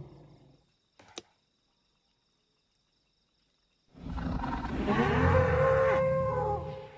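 Dinosaur roar sound effect: one long, deep roar of about three seconds, starting about four seconds in after a near-silent gap.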